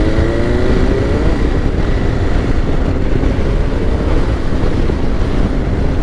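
KTM 890 Adventure's parallel-twin engine accelerating, its pitch rising for about the first second, then running on under steady wind rush as the motorcycle picks up speed.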